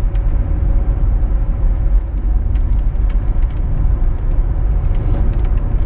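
Car driving along a road, heard from inside: a steady low rumble of engine and tyre noise with a faint steady hum above it.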